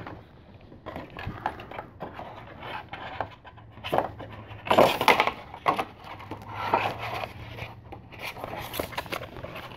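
Handling noise from a steelbook Blu-ray case being slid into a clear plastic case protector: plastic rustling, tapping and scraping, loudest about four to five seconds in and again near seven seconds. A faint steady low hum runs underneath.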